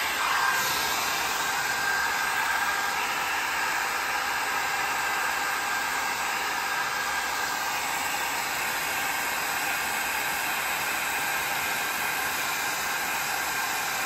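Hand-held Conair hair dryer running on its high setting: a steady rush of blown air with a faint high whine.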